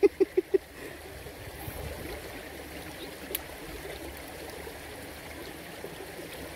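Shallow stream water running steadily over rocks, with a few short voice sounds in the first half second.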